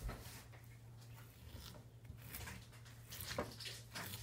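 Faint, wet scraping as the seeds are scooped out of a halved cucumber, a few soft strokes near the end, after a soft knock at the start. A steady low hum runs underneath.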